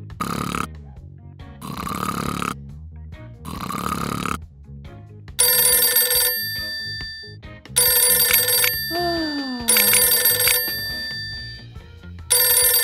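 Cartoon sound effects: three slow snores, then a telephone bell ringing in four short bursts, with a falling whistle-like tone between the second and third rings. Background music underneath.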